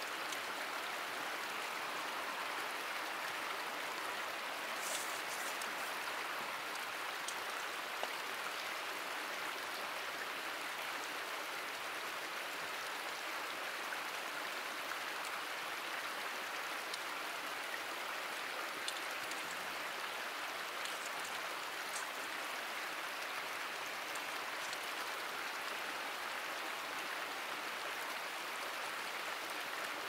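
Mountain stream rushing steadily, with a few faint brief crackles over it.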